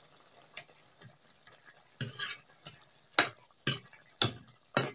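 A ladle stirs chicken curry in an iron kadai: a scrape about two seconds in, then four sharp knocks against the pan about twice a second. Before the stirring there is a faint sizzle from the pan.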